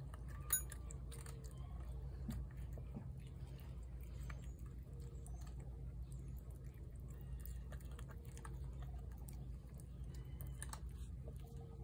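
Tabby cat eating chunky wet cat food from a plate: a run of small, irregular wet chewing and lapping clicks, with one sharper click about half a second in, over a low steady hum.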